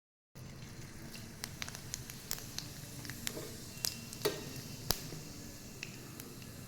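Food sizzling as it fries in a pan: a steady hiss with scattered crackling pops and a few louder sharp clicks around the middle.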